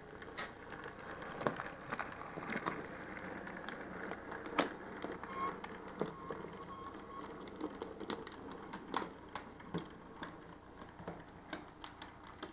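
Model steam locomotives running slowly over layout track: a steady low motor hum with many sharp, irregular clicks of wheels over rail joints and pointwork.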